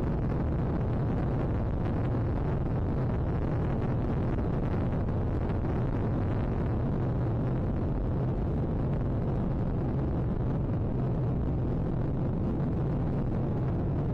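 Steady roar of a Ryanair Boeing 737's jet engines and rushing air, heard from inside the passenger cabin.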